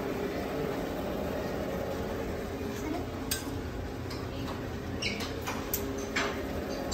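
A handful of light, sharp clinks in the second half, over a steady background hum.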